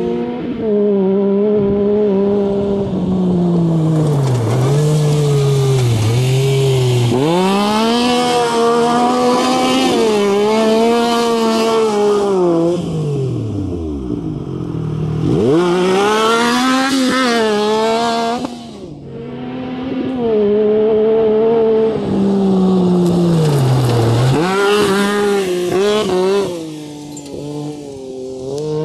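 Yamaha YXZ1000R side-by-side's three-cylinder engine revving hard and easing off over and over as it is driven across loose dirt, the pitch climbing and falling with each throttle run.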